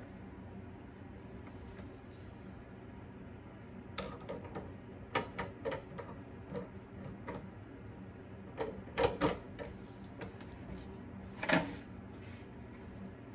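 Scattered clicks and clunks of hands handling a Rancilio Silvia espresso machine, its portafilter and a ceramic cup, over a faint steady hum. They start about four seconds in, and the loudest knocks come about nine and eleven and a half seconds in.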